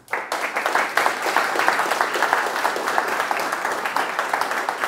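Audience applauding: many hands clapping, starting at once and holding steady.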